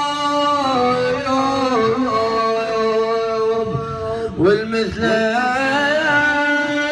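A man chanting a Shia mourning lament in a sad voice, drawing out long held notes with wavering, melismatic turns and a quick slide in pitch about four and a half seconds in.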